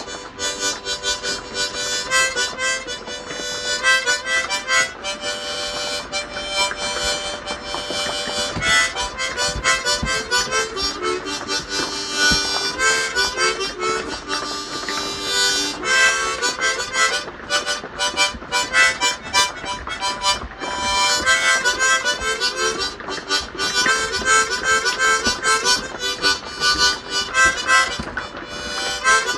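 Harmonica played solo, a run of sustained notes and chords that shift in pitch, with breathy pulses between them.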